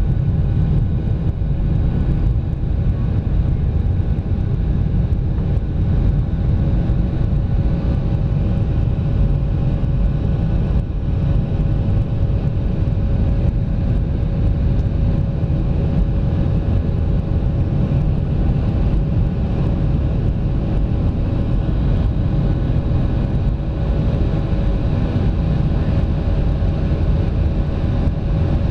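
Jet airliner cabin noise during the climb after takeoff: the wing-mounted turbofan engines and rushing air make a steady low roar, with a faint steady hum above it.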